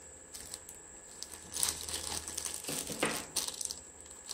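Small clear plastic zip-lock bag of charging cables and USB/Type-C adapters being handled in the hands, the plastic crinkling while the connectors inside click against each other. A run of short crackles and clicks, loudest in the middle.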